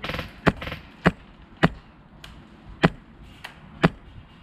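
Airsoft rifle firing aimed single shots, five sharp cracks at uneven intervals, after a brief rapid rattle at the start.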